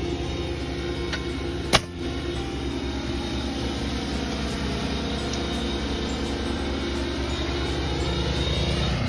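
Steady mechanical hum of a running motor, with one sharp crack about two seconds in, as a fastener is driven into lap siding, and a faint click just before it.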